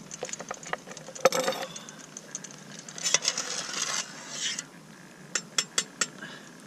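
A metal ladle scraping and clinking in a steel pot, scooping cooked whelks and winkles out of the boiling water, with a quick run of sharp clinks near the end.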